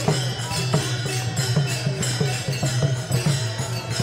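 Warkari procession music: a steady beat of clashing hand cymbals (taal) and drum strokes, about three a second, over a sustained low hum.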